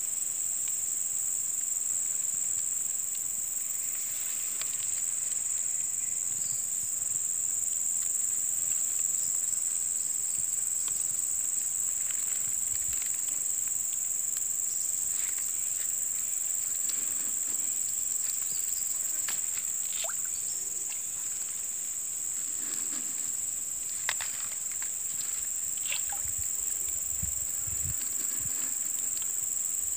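A steady, high-pitched drone of insects in the surrounding woodland, unbroken throughout, with scattered faint clicks and rustles.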